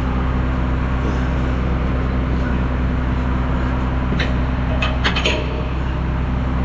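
Truck engine idling steadily, with a few sharp clicks about four to five seconds in.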